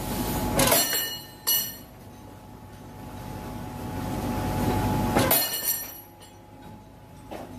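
Threading machine cutting thread onto a steel rod. The motor hums and the grinding builds up steadily, broken by sharp metallic clanks with ringing about a second in, at about a second and a half, near five seconds and again near the end.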